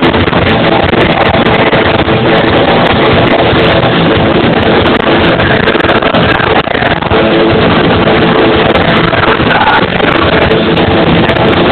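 Live rock band playing loudly: electric guitar and bass guitar over a drum kit, with no break. The recording stays close to its maximum level throughout.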